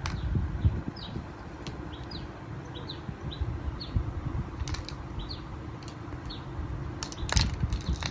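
Small birds chirping over and over in short high notes, about two a second, over a low rumble. A brief scratchy rustle comes about seven seconds in and is the loudest thing heard.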